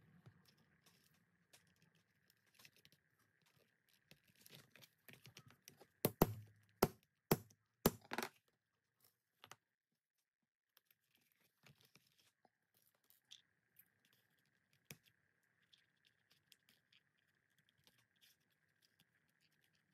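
Faint handling noises of leatherwork, scratching and rustling, with a quick run of about six sharp taps about six to eight seconds in.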